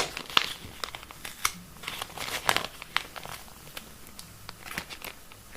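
Plastic packaging crinkling and crackling in the hands as a fingerboard truck package is opened, with scattered sharp clicks.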